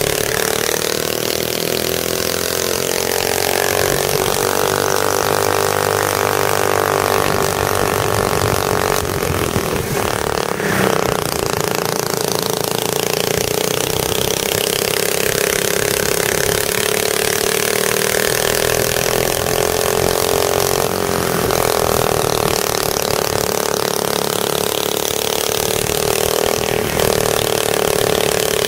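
Racing go-kart engine heard from on board at speed, its pitch climbing along the straights and dropping back as the driver lifts for the corners, several times over.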